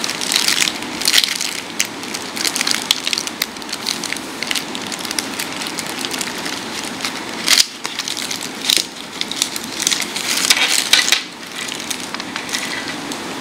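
A thin clear plastic wrapper around a wristwatch crinkling and crackling as it is handled and its foam cushion pads are pulled off. The crackling is irregular, with a few louder crunches between about seven and eleven seconds in.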